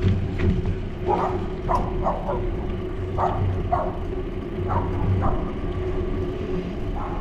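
A dog barking repeatedly, about nine barks, several in pairs about half a second apart, over a steady low rumble.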